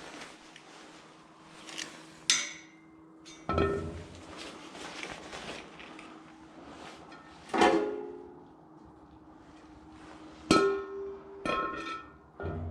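Metal objects clanking together about six times, each knock ringing briefly, as scrap metal is handled.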